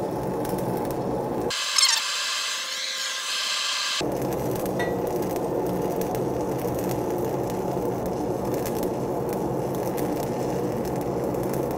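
A shielded metal arc (stick) welding arc crackles steadily as a quarter-inch 7018 electrode lays the cap pass on steel pipe, at roughly 320 to 330 amps. Between about two and four seconds in, the sound briefly thins to a brighter hiss.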